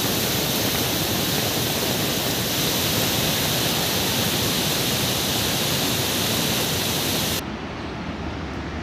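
Swollen, muddy floodwater torrent rushing in spate: a loud, even roar. About seven seconds in it cuts off abruptly to a quieter, duller noise.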